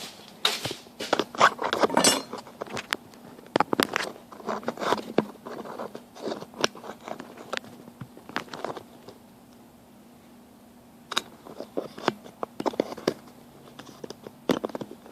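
Small pieces of sheet steel and draw-latch parts being handled on a workbench: irregular clinks, taps and scrapes of metal, with a faint steady hum under them and a quieter pause about two-thirds of the way through.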